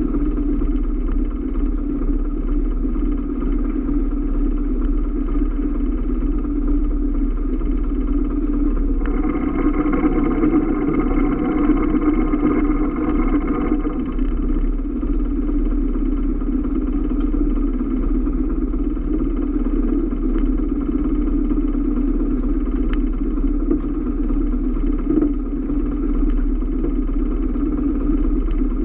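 Boat engine running at a steady, even hum, with a brighter mechanical tone joining in from about 9 to 14 seconds in.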